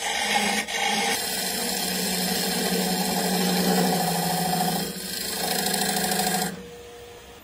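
Turning chisel cutting into the face of a large wooden disc spinning on a wood lathe: a steady scraping over the hum of the lathe. The cut stops about a second before the end, leaving only quieter running.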